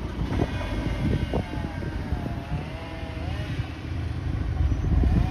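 Wind rumbling on the microphone, with a vehicle engine running over it whose pitch wavers up and down, and a few sharp knocks.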